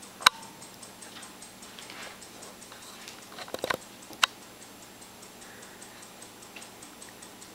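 Faint regular ticking throughout, with a sharp click about a quarter second in and a short run of clicks and knocks around three and a half to four seconds in.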